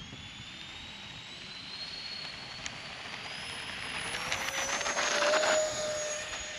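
Twin 64 mm electric ducted fans of an RC A-10 jet spooling up for the takeoff roll. A high whine rises steadily in pitch as the throttle comes up, growing louder as the jet rolls along the runway, loudest about five seconds in and then easing off.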